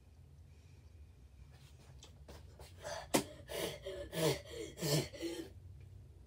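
A boy gasping and huffing several times in a row, breathy bursts with a little voice in them, reacting to the sourness of a freshly eaten extreme sour candy. A sharp click sounds about three seconds in.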